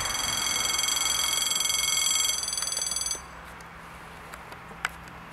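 Level crossing's electronic warning bell ringing with a fast, high, steady ring, then cutting off suddenly about three seconds in as the crossing clears after the train.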